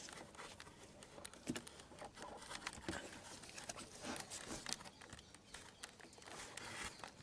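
Faint, irregular clicks and knocks of hands pushing a plastic washer fluid pump into its rubber seal on the washer reservoir.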